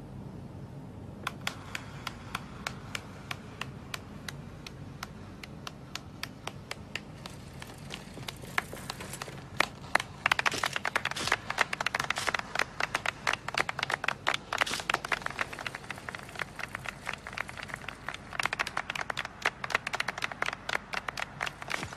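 Crowd applauding. A few scattered hand claps start about a second in and build into dense applause about ten seconds in, easing slightly in the middle and rising again near the end.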